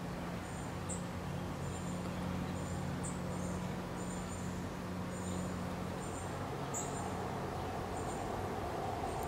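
Outdoor ambience with short, high-pitched chirps repeating roughly once a second, from insects or small birds, over a steady background hiss. A low hum runs underneath and fades out about six seconds in.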